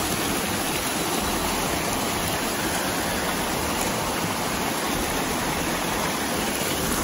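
Small cascade in a mountain stream, the water rushing and splashing steadily over mossy boulders.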